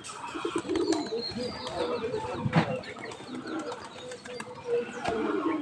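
A flock of domestic pigeons cooing steadily as they feed, with a short run of high chirps a little after the first second.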